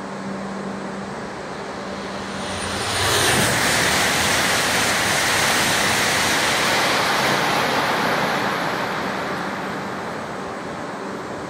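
Series E5 Shinkansen train running through the station without stopping: a loud rush that comes on suddenly about three seconds in, holds for about five seconds, then fades away.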